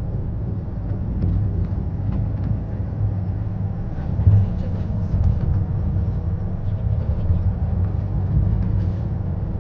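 Miniature park train running along its track, heard from aboard a carriage: a steady low rumble with faint clicks and rattles.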